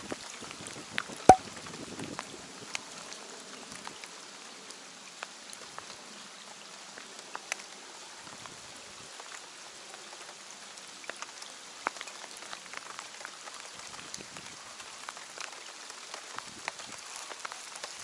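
Steady rain falling on the lake surface, an even hiss with many small drop ticks scattered through it. One sharp, louder click stands out about a second in.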